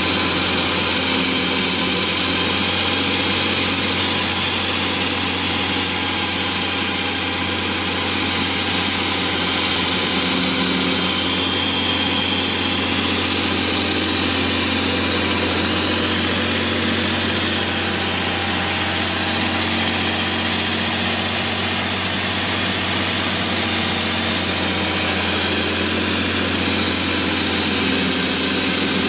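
Diesel engine of a JHD-900 walk-behind concrete saw running steadily, with a constant low hum and a faint high whine that drifts in pitch midway.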